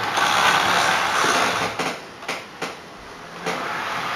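Model railway train running on the layout's track: a steady rattle of motor and wheels that drops away a little under two seconds in, with a few sharp clicks. It comes back briefly and fades near the end.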